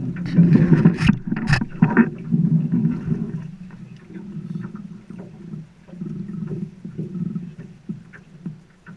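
River water lapping and gurgling against a boat's hull in the current, with a few sharp knocks against the boat in the first two seconds.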